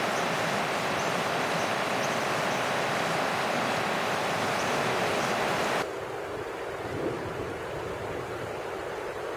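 Steady, loud rush of shallow river rapids running over rocks. About six seconds in it cuts off suddenly and is replaced by a quieter, duller rush.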